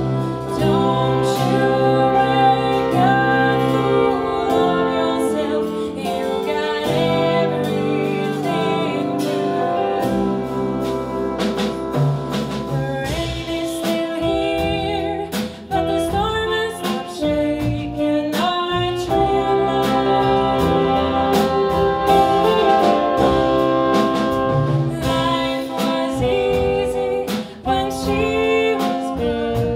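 Jazz ensemble playing live: trumpet, trombone and saxophone over drum kit and double bass, with violin and electric guitar in the band.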